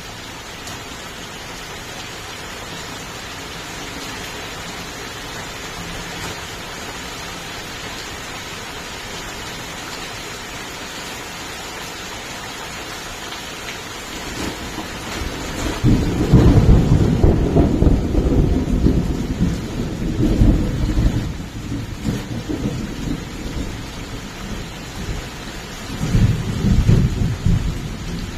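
Steady rain falling, an even hiss that grows slowly louder. About halfway through, thunder rumbles low and loud for several seconds, and rumbles again near the end.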